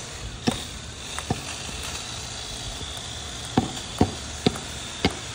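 About seven sharp knocks at irregular intervals, over a steady low rumble.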